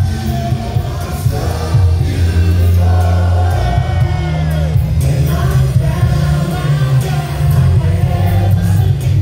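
An R&B vocal group singing live over a band through a concert PA, with several voices and a heavy bass line, heard loud and bass-heavy from within the audience. A lead voice slides down in a vocal run about four seconds in.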